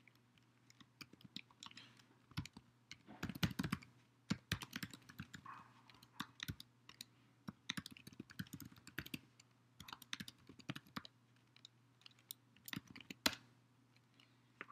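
Faint typing on a computer keyboard: irregular keystroke clicks in uneven runs with short pauses between them.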